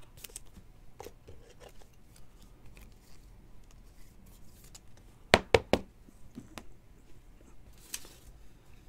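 Trading cards handled by hand: light rustling and sliding of card stock, with a quick run of three or four sharp clicks about five and a half seconds in and one more near the end.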